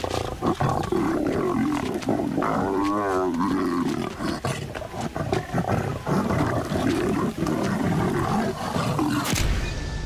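Lions growling while feeding at a small kill, cubs among them fighting over the scraps; one longer, wavering growl stands out about three seconds in.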